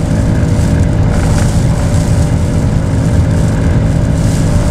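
Blizzard wind gusts buffeting and rocking a car, heard from inside the cabin as a loud, steady low rumble.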